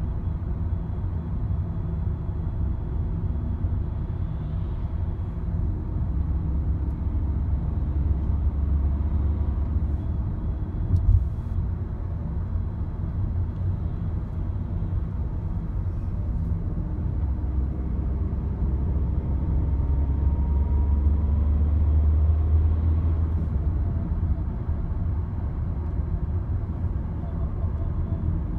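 Skoda Octavia Mk3 engine running with a steady low drone that rises and falls a little, the weird engine sound its owner is recording. A single knock about 11 seconds in.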